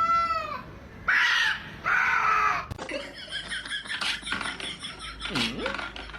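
An animal calling: three drawn-out cries that rise and fall in pitch in the first few seconds, followed by a jumble of shorter sounds and a lower swooping call near the end.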